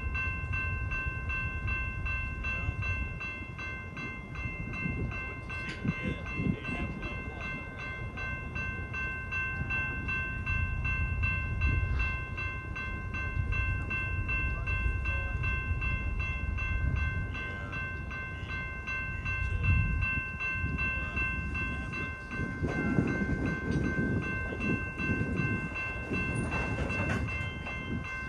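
Freight cars rolling past at a grade crossing: a steady rumble of steel wheels on rail, with occasional clanks and a busier run of knocks near the end. The crossing bell rings steadily throughout.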